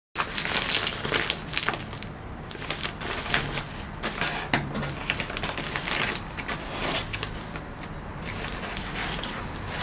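Plastic shipping bag crinkling and rustling as it is handled and turned over in the hands, with irregular crackles and sharp clicks.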